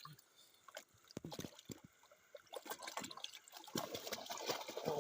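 Water splashing and sloshing as fish are chased in a bamboo polo trap, in irregular splashes that grow denser and louder near the end.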